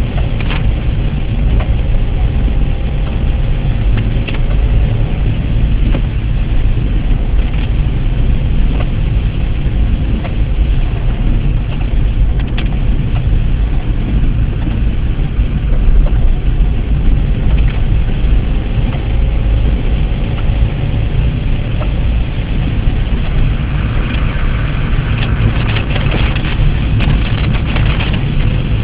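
Car driving on a wet road, heard from inside the cabin: a steady low rumble of engine and tyres. A hiss of water grows louder near the end.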